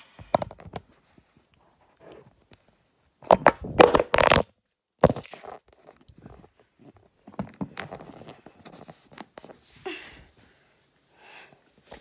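Handling noise from a phone being jostled and grabbed: irregular bumps, knocks and cloth rubbing on the microphone, loudest in a burst of sharp knocks a little over three seconds in.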